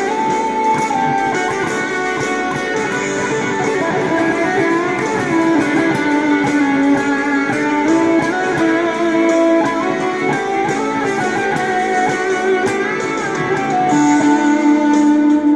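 Electric guitar played through a BOSS BD-2 Blues Driver overdrive pedal with the Keeley Phat mod, improvising in D with picked melodic lines and chords. A single note is held and rings out near the end.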